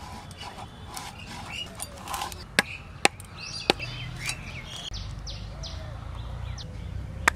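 Raw red vetki (barramundi) being cut into steaks on a boti, a large curved kitchen blade: four sharp cracks as the fish is forced through the blade, with birds chirping in the background.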